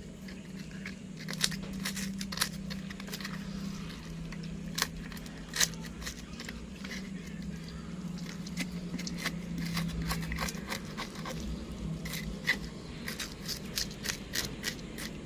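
Irregular clicks and crunches of someone eating, over a steady low hum.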